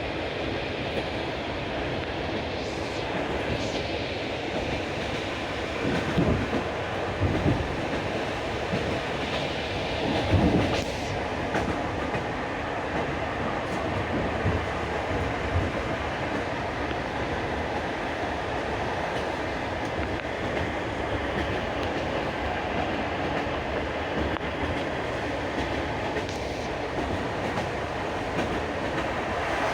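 Railway carriage wheels clattering over the rail joints of jointed track, with a steady rolling rumble and a few louder knocks around a third of the way in.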